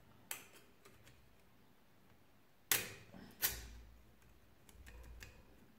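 Thin metal cylinder base gasket clicking against the steel cylinder studs as it is fitted down over them: a light click about a third of a second in, then two sharper clicks close together near the middle, with faint ticks between.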